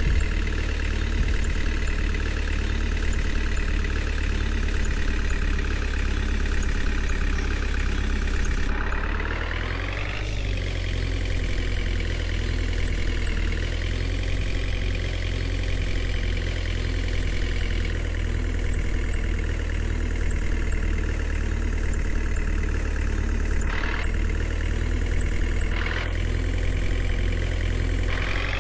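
Diesel engine of a JCB 3DX backhoe loader running steadily. About nine seconds in it revs up with a rising pitch, then settles back. Two short, sharp noises come near the end.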